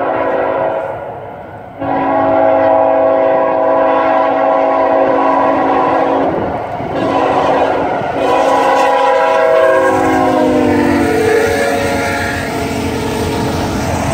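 Locomotive air horn sounding a chord of several notes in a series of blasts: a long one, a short one, then a long one. The pitch drops about ten seconds in as the train passes.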